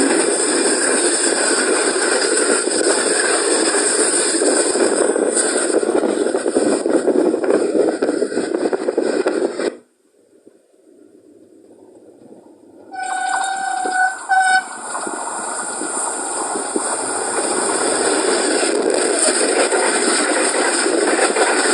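Passing train, a loud steady rush of wheel and air noise that cuts off abruptly near the middle. After a few quieter seconds the noise comes back, and a locomotive horn sounds, one longer blast followed quickly by a short one, as the train rushes on.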